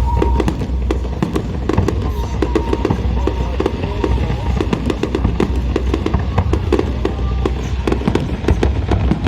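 Fireworks display going off: a rapid, continuous run of bangs and crackles over a low rumble.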